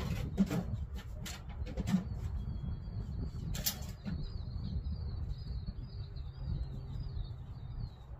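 A few sharp knocks of heavy wooden porch chairs being shifted in the first seconds, over a steady low rumble. From about two and a half seconds in, a bird chirps in a quick, repeating high warble that runs on to near the end.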